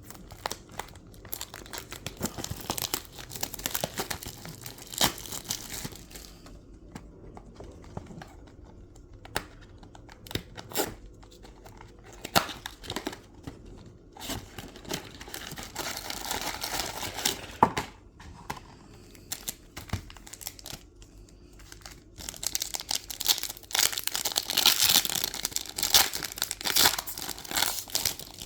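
A foil Pokémon booster pack being torn open and crinkled in the hands, in bursts of tearing and crackling with quieter pauses between.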